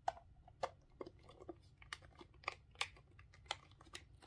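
Clear plastic breast pump parts being handled and fitted together: a string of irregular light clicks and taps as the flange and collection cup are turned and pressed into place.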